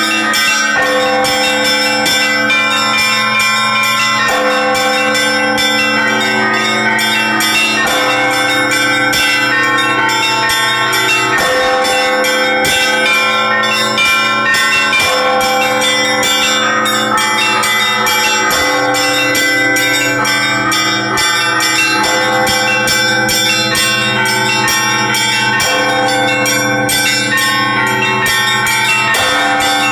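Russian Orthodox church bells rung by hand by a bell-ringer: a continuous loud peal of many quick strikes over lower bells ringing steadily underneath.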